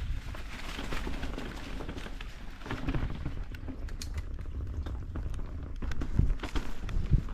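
Mountain bike riding over a rough dirt trail: tyres rolling and crunching on the ground, with a constant patter of small knocks and rattles from the bike over bumps and a few harder knocks near the end.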